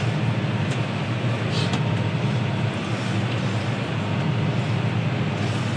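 Steady low drone of a John Deere 6R tractor's engine and drivetrain, heard inside its cab while it drives through the field.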